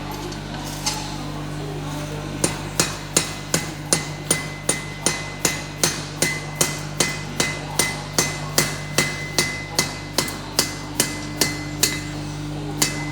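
Hammer blows on iron bars at an anvil, forge welding a scarf joint at welding heat: one blow about a second in, then steady strikes about three a second from a couple of seconds in, each with a short metallic ring. A steady low hum runs underneath.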